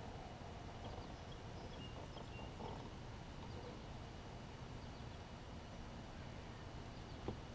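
Faint outdoor ambience on a kayak on calm water: a steady low rumble with a few faint, high bird chirps, and a single knock near the end.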